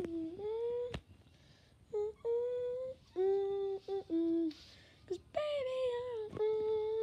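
A child humming a slow tune close to the microphone, held notes in several short phrases with brief pauses between.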